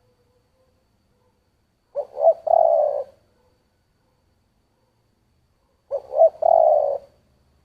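Spotted dove (cu gáy) cooing in the low 'thổ' voice, twice, about four seconds apart. Each call is a couple of short clipped notes running into a longer drawn coo.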